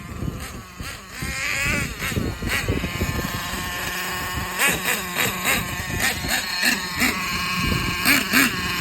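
Small 8.2cc model engine of a Thunder Tiger S50 running at high pitch and being revved up and down in repeated short bursts.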